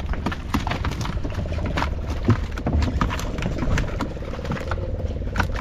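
Irregular light knocks and taps aboard a small fishing boat over a steady low rumble, with a faint steady hum joining about three seconds in.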